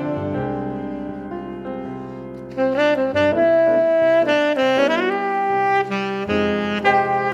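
Background music: a melody line over held chords, louder from about two and a half seconds in, with a quick upward run of notes about halfway through.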